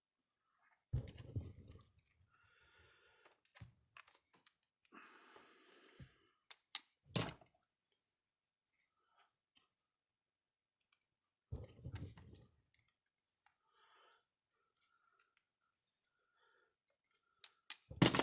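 Scattered clicks, taps and rustling of wires, spade connectors and hand tools being handled during bench repair of an electric fence energizer. Sharper knocks come about a second in, around seven seconds in, near twelve seconds and near the end.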